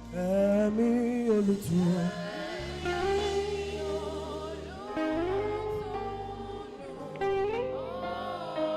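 Saxophone playing a slow gospel worship melody, sliding between notes with vibrato, over steady bass notes from the backing band.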